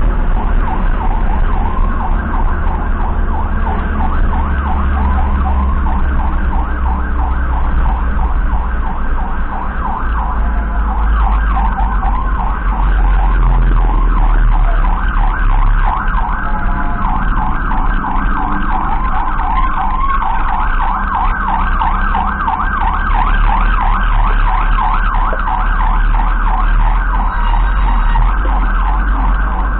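Emergency vehicle siren sounding a fast, continuous warble, over the steady low rumble of the vehicle's engine and road noise inside the cab.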